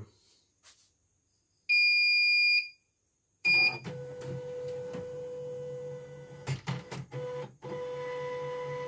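CNY portable embroidery machine switched on: a loud electronic beep of about a second, then a second short beep. After that the powered machine gives a steady electrical hum with a thin whine, dipping briefly twice.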